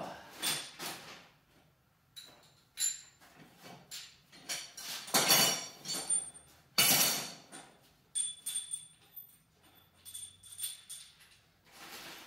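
Metal clinks and knocks of tools and bolts as front suspension hardware is refitted on a car, some with a brief metallic ring, with two louder short rushing bursts about five and seven seconds in.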